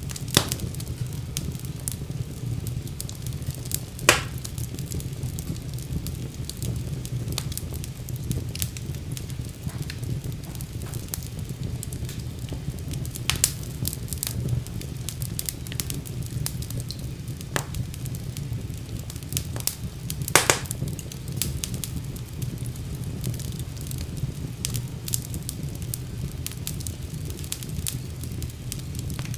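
Fire burning in a fireplace: a low steady rumble with constant small crackles and a few louder sharp pops scattered through, the loudest about 20 seconds in.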